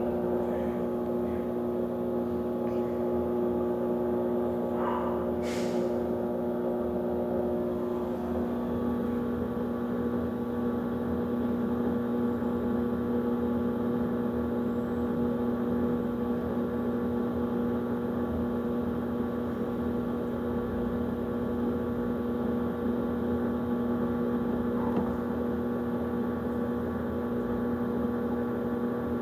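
Electrolux washing machine running with a steady motor hum made of several fixed tones. The set of tones shifts about 8 seconds in, with a brief click near 6 seconds. The hum is the unwanted noise being recorded from the machine.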